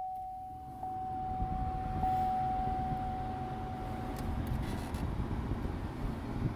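New blower fan motor of a 2012 Chevrolet Impala starting up after replacement, pushing air out of the dash vents with a low rushing sound and a faint steady hum. Over it, a repeating electronic chime tone rings on and stops about four seconds in.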